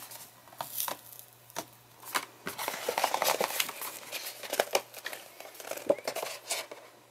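Paper crackling and rustling in short sharp clicks as the glued spine of a paperback coloring book is flexed and worked loose, with an X-Acto knife scraping along the binding: the glue cracking as it separates.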